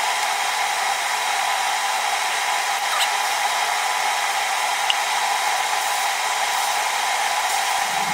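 Steady rushing noise like an electric blower or fan running, with a faint tick about three seconds in and another about five seconds in.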